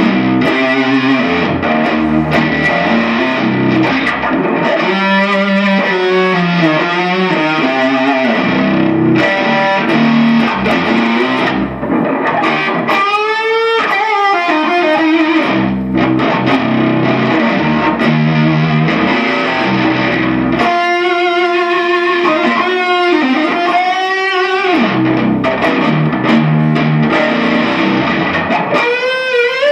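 Electric guitar music played loud with distortion, with notes sliding in pitch in places, recorded through a phone's microphone.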